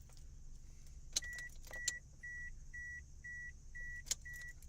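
A car's warning chime beeping steadily at about two beeps a second, starting about a second in, with a few sharp clicks of switches or keys.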